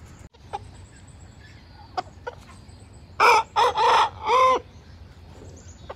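A gamecock rooster crows once about three seconds in: a loud four-part cock-a-doodle-doo whose last note is held and then drops away. Before it there are a few faint short clicks.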